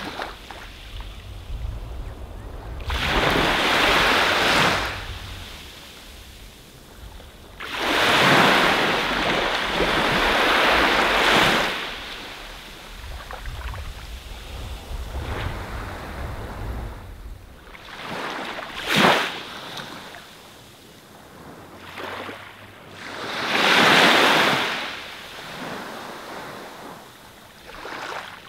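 Sea waves breaking and washing up on a beach, each wave swelling and fading over a few seconds, with a sharper splash about two-thirds of the way through and a low rumble underneath in the first half.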